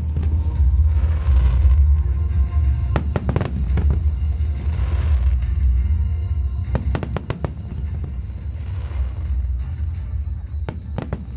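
Aerial fireworks bursting: clusters of sharp cracks and bangs with crackling, sparkling swells between them, over music with a heavy low bass.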